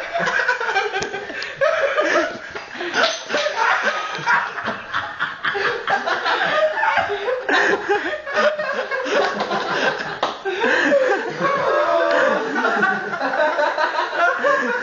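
People laughing, with no let-up.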